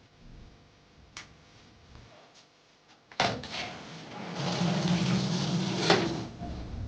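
Mabe top-load washing machine, its lid switch newly replaced, starting up: a small click, a sharp knock about three seconds in, then a steady rushing sound with a low hum as the cycle begins, with another click near the end.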